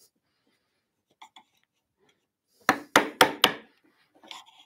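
Mallet striking the handle of a mortise chisel four times in quick succession, about a quarter second apart, chopping out the waste between drilled holes in a mortise. A couple of faint ticks come before the strikes and a few light knocks after them as the chisel is repositioned.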